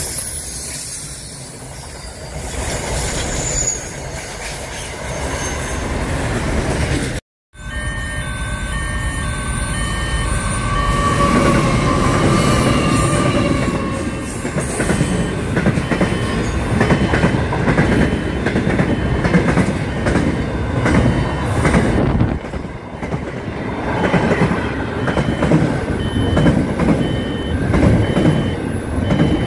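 Freight trains passing close by, wheels running and clattering over the rail joints with some high wheel squeal. Sound drops out briefly about a quarter of the way in, then a second train of container and car-carrier wagons passes, louder.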